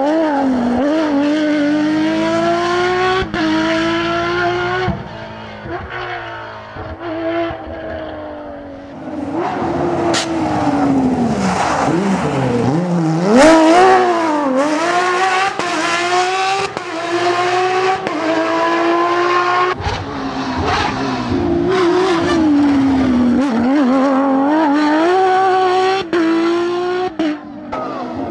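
Porsche 997 GT3 Cup rally car's flat-six engine at full throttle, its pitch climbing and breaking at each quick upshift, then dropping in steps under braking and downshifts, over several passes of the car.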